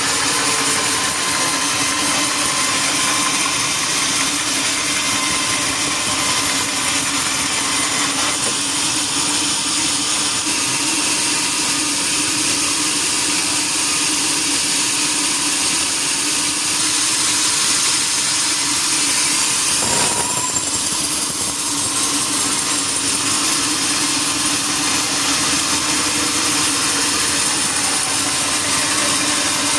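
Sawmill machinery running steadily, a loud, even machine noise with a strong high hiss over a steady low hum.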